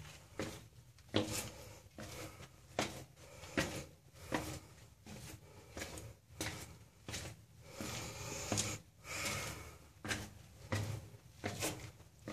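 Footsteps on a stone floor in a narrow masonry tunnel, about two steps a second, each step a short knock with a little echo.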